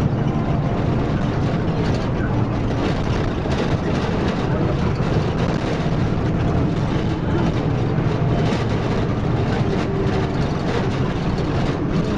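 Zonda YCK6128HC city bus on the move, its Cummins ISB diesel engine running steadily under a constant, even vehicle noise.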